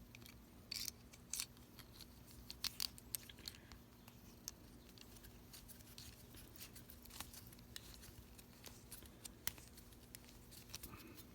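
A plastic wire nut being twisted by hand onto three twisted #12 solid copper wires: faint, scattered small clicks and scrapes, a few louder ones in the first three seconds.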